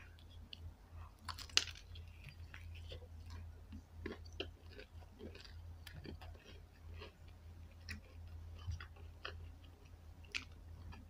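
Close-up chewing of crispy spicy fried chicken: faint, irregular crunches and wet mouth clicks, with a sharper crunch about a second and a half in.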